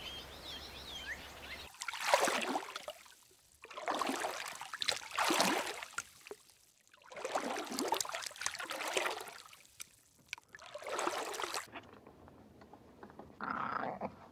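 Water sloshing and splashing in four or five surges, each about a second long, in a shallow turtle pool. Near the end, a tiger cub gives a short snarl.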